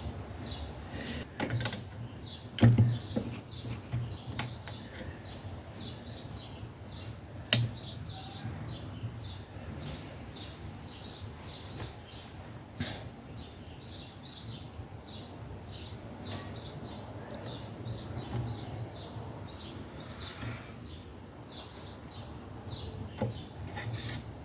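Small birds chirping over and over in the background, with a few sharp knocks, the loudest about 3 seconds in and again near 8 seconds in.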